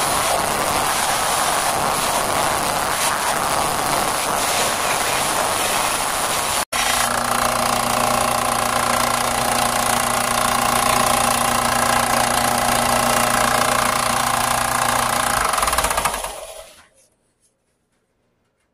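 Bench belt sander running while a deer-antler tip overlay on a bow limb is ground against the belt, a steady grinding hiss. After a sudden brief dropout the motor runs on with a steady hum, then is switched off and winds down to silence within about a second, near the end.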